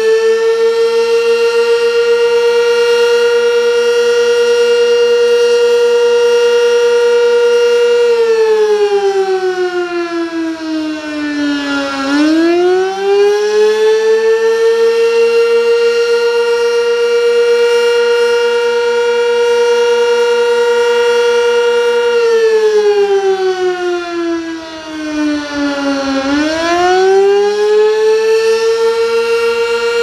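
Sentry 16V1T-B outdoor warning siren sounding the attack signal for a monthly test: a loud wail held steady for about eight seconds, then gliding down over about four seconds and swooping back up to hold again, with a second fall and rise near the end.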